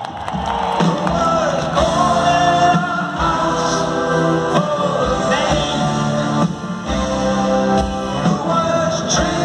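Live rock band playing with sung vocals, loud and continuous, heard from the audience in a large arena with the hall's echo.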